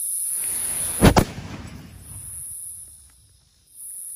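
A black-powder train fizzing as it burns, then the .40-caliber muzzleloading pistol barrel firing about a second in with one sharp, very loud bang. A rumbling echo dies away over the next two seconds.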